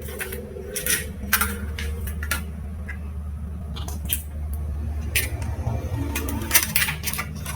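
Irregular small clicks and taps of plastic and metal parts being handled on an opened laptop and its mainboard, over a steady low hum.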